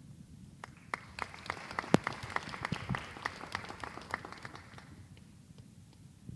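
Audience applauding, starting about half a second in and dying away after about five seconds.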